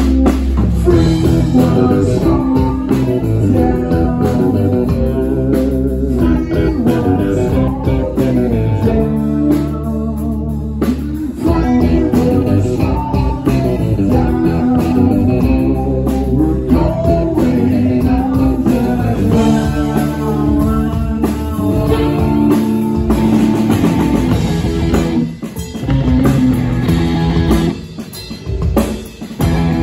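A rock band playing live: electric guitars, bass guitar and drum kit, with singing. The band drops briefly quieter a few times near the end.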